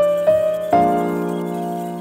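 Background music: soft electric piano chords. A new chord is struck about a quarter second in and another about three quarters of a second in, each ringing and slowly fading.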